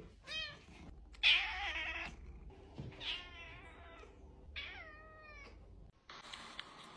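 A domestic cat meowing four times, about a second apart; the second meow is the loudest and longest, and the last falls in pitch.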